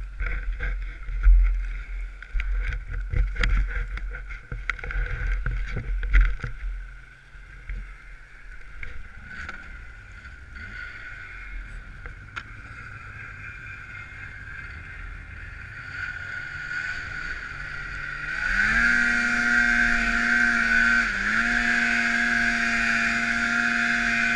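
Knocks and bumps on the microphone over a snowmobile's 800 two-stroke engine idling, then about 18 seconds in the engine revs up quickly and holds high revs, dipping briefly once, as the sled pulls away through deep powder.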